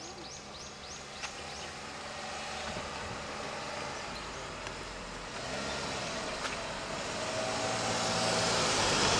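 A car approaching on the road, its engine and tyre noise growing steadily louder through the second half. A run of quick high chirps, about four a second, sounds in the first second or so.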